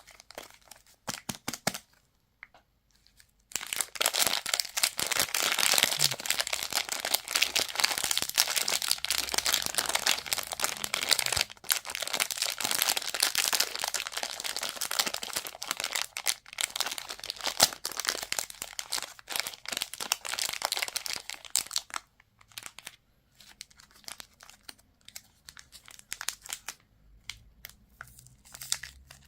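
Candy wrappers being crinkled and torn open by hand. After a short pause there is a long stretch of dense crackling, which thins to scattered crackles in the last several seconds.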